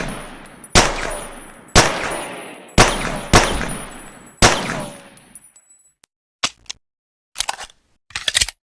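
Pocket pistol shots: five sharp reports about a second apart, one pair closer together, each trailing off in a long echoing decay. After them come a few short, quieter clicks.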